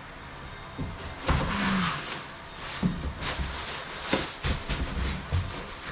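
Footsteps and a run of irregular knocks, clanks and rustling as a person picks up and handles a tubular steel K-frame.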